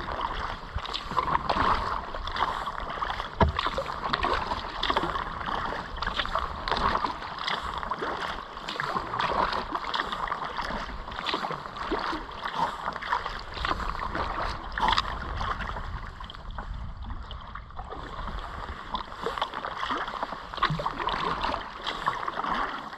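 Kayak paddle blades dipping and splashing in river water, stroke after stroke, over a steady rush of moving water.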